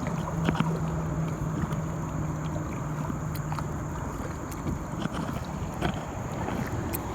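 Kayak out on a river, with scattered small knocks and splashes from paddling over a steady rush of water and wind on the microphone. A low steady hum fades over the first few seconds.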